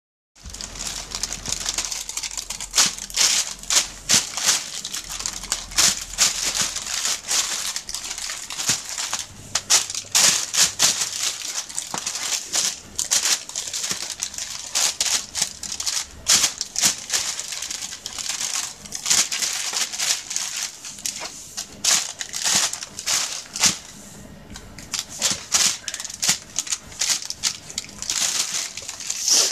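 A thin plastic shopping bag crinkling and rustling in rapid, irregular crackles as a cat twists and pounces inside it. There is a brief lull about three-quarters of the way through.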